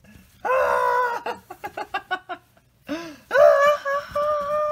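Domestic cat giving two long, drawn-out meows, a shorter one about half a second in and a longer, held one near the end, with faint rustling and scratching of fabric between them.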